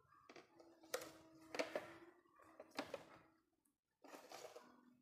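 Faint clicks, taps and rustling from handling an analog multimeter's test leads and loose fan wiring, a few sharper clicks among them. A faint steady tone sits underneath for about two seconds near the start.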